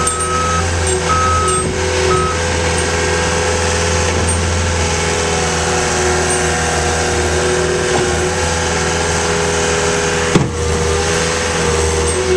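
Caterpillar skid steer's diesel engine running steadily under work, with its backup alarm beeping three times at the start and a single sharp knock about ten seconds in.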